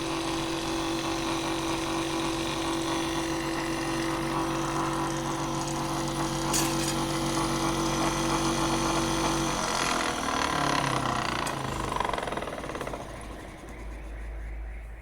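Bench drill press, set up as a makeshift wood lathe, running with a steady hum and a hiss over it. About nine or ten seconds in, it is switched off and its pitch falls as the motor spins down to a stop.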